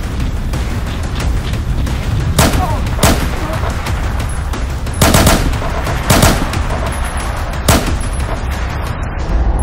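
Handgun gunshots, as film sound effects: about six sharp single shots at uneven intervals.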